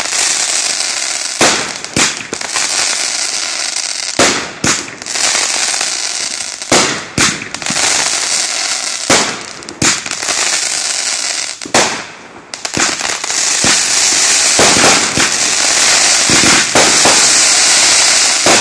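Riding Shotgun 25-shot, 500-gram consumer fireworks cake firing: sharp shots and bursts every two to three seconds, often in quick pairs, over a dense, steady crackling of the stars. The crackle thickens to a near-continuous wash from about halfway through.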